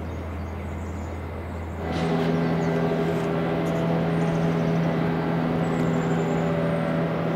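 Outdoor street ambience with a steady vehicle hum. About two seconds in, the sound changes abruptly to a louder, steady drone of constant pitch that holds to the end.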